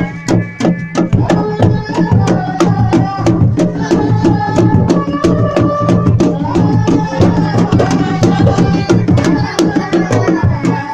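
Sundanese dogdog drums played together in a fast, steady rhythm, with a held melody line running over the drumming.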